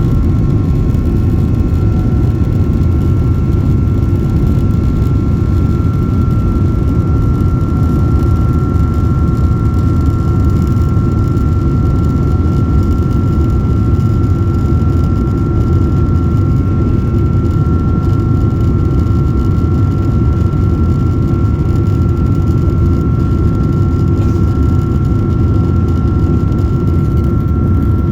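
Jet engine and airflow noise heard inside the cabin of a Boeing 767-400ER airliner: a steady, deep rumble with a constant high whine over it.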